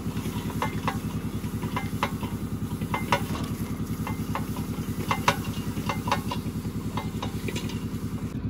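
Small engine running steadily with a fast, even pulse, with scattered sharp clicks and knocks over it.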